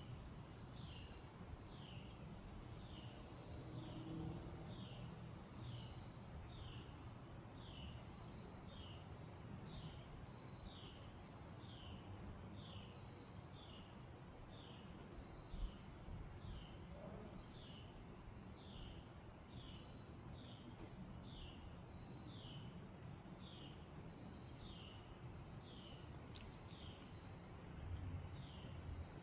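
Faint autumn wind through leafy trees, with a low rumble of wind. A high, falling chirp repeats steadily a little more than once a second throughout, and a single soft thump comes about halfway.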